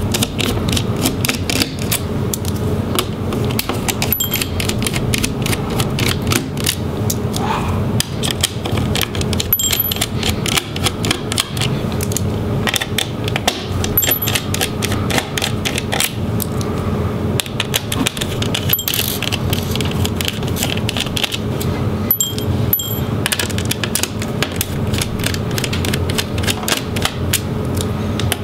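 Rapid, dense clicking and light scraping of a small Phillips screwdriver working the screws out of a laptop's large plastic internal bracket.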